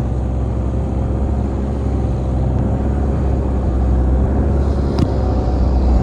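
Longtail boat's engine running steadily under way, a loud low drone with a hiss of wind and water over it. A single sharp click about five seconds in.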